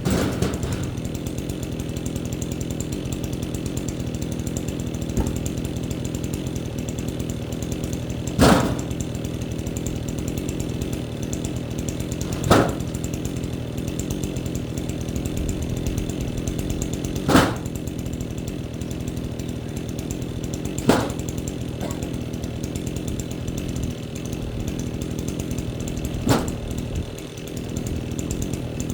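Small engine running steadily at an even speed while firewood is worked, with a sharp crack of wood about every four to five seconds, six in all.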